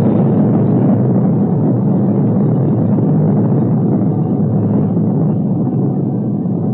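Atomic bomb explosion on a 1950s film soundtrack: a deep, continuous rumble that slowly fades, dull and without highs.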